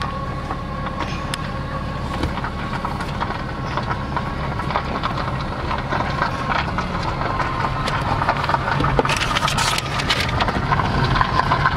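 Car running down a concrete parking-garage ramp, heard from inside the cabin: a steady low engine and road hum with scattered short ticks, getting a little louder toward the end.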